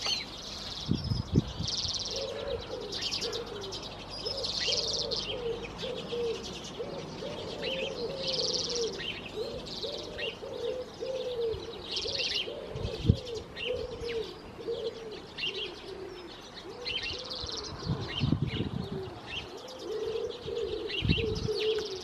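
Small finches, redpolls and siskins, twittering in quick clusters of high chirps, over a pigeon cooing in low repeated phrases almost throughout. A few low thumps stand out, the sharpest about 13 seconds in.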